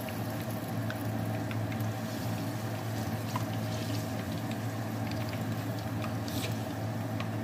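Banana spring rolls (turon) sizzling in hot oil in a wok, with many small crackling pops throughout. A steady low hum runs underneath.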